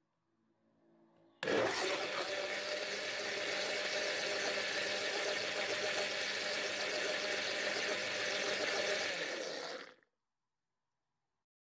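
Electric blender running at speed, whirling a liquid drink in its jar. It starts suddenly about a second and a half in, runs steadily, and cuts off abruptly near the end.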